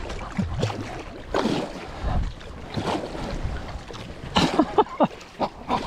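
Kayak paddle blades dipping and splashing in the water with each stroke, about one stroke a second, with wind on the microphone.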